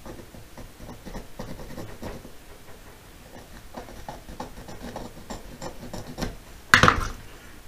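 Stiff brush scrubbing leftover paint stripper and paint off a die-cast metal model car body: a run of short, irregular scratching strokes, with one short, louder scrape near the end.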